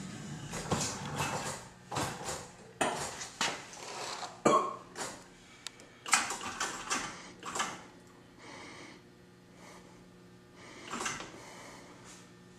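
Claw machine being played: a run of clattering clicks and knocks from the claw and its workings, busiest in the first eight seconds and again briefly near the end, over a low steady hum.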